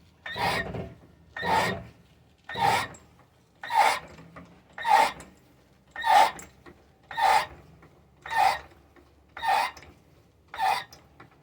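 Rhythmic rasping strokes, about one a second, ten in all, each lasting about half a second.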